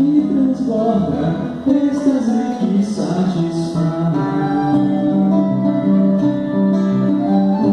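A worship song performed live: singing over acoustic guitar accompaniment. The sung line moves through the first half, and from about four seconds in steady held chord notes carry on.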